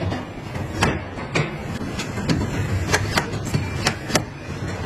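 Car body assembly line noise: a steady low machinery rumble with sharp metallic clicks and clanks at irregular intervals, about two a second.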